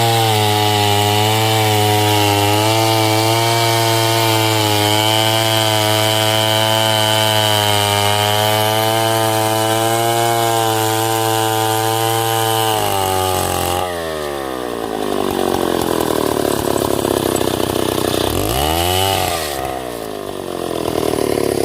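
Stihl two-stroke chainsaw running at full throttle, steady and loud, as it cuts through hardwood coconut trunk for about thirteen seconds. Then the throttle is let off and the engine note falls away, with one quick blip of revs near the end.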